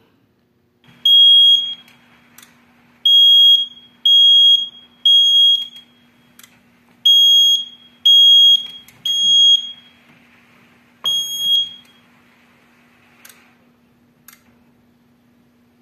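Fire alarm control panel beeping: eight high-pitched beeps of about half a second each at uneven intervals, with clicks between them, while the alarm is being silenced at the main panel. A faint hiss behind the beeps stops with a click about 13 seconds in, over a steady low hum.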